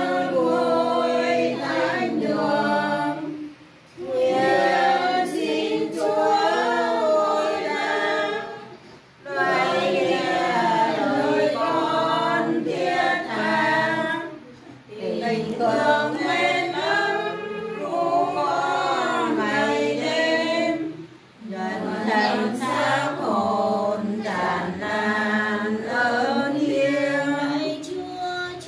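A small group of people singing a Vietnamese Catholic prayer hymn together without accompaniment, phrase by phrase, with four short pauses for breath.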